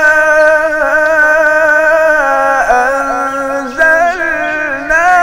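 A man's voice in melodic Quran recitation (tilawah), unaccompanied, holding long ornamented notes with vibrato. The pitch steps down about two seconds in, breaks briefly, then climbs again near the end.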